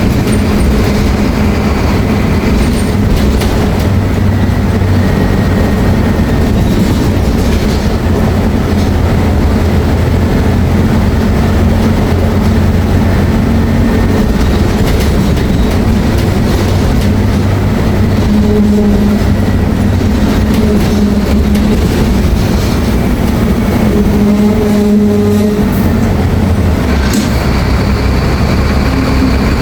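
Mercedes-Benz OF-1724L bus engine running, a loud steady low drone whose note shifts a few times, most clearly about two thirds of the way in.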